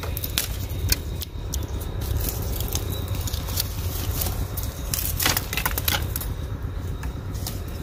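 Dry, charred bamboo stems and twigs crackling and snapping as a hand reaches in through a burnt bamboo clump, with a few sharper cracks about five to six seconds in, over a steady low rumble.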